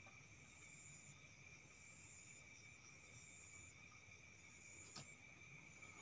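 Faint, steady high-pitched chirring of night insects such as crickets, with one sharp click about five seconds in.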